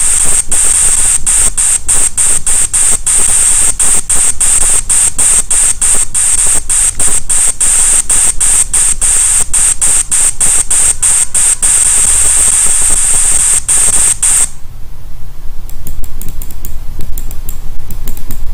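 A steady high hiss with a fast run of clicks, the simulated motion sound of a CNC lathe simulator while the turret jogs along the Z axis. It stops suddenly about fourteen seconds in, and only faint scattered clicks follow.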